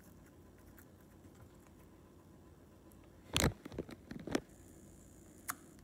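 Clear slime being poked and squished by fingers, giving a cluster of sharp sticky pops and clicks about halfway through, with one more near the end.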